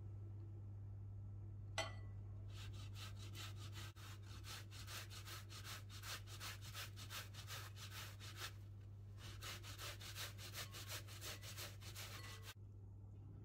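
A cooked potato is rubbed up and down a stainless steel box grater in regular rasping strokes, about three a second, with a short pause about eight and a half seconds in. There is a single sharp click about two seconds in, just before the grating starts.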